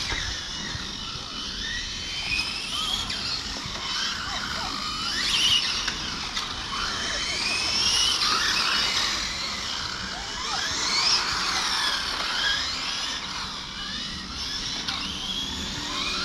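Several 1/8-scale electric GT RC cars racing past, their brushless motors whining in overlapping pitches that rise and fall as they accelerate and brake.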